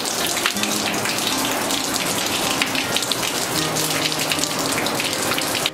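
Hot-spring water pouring steadily from a wooden spout into a round bathtub, a continuous splashing stream.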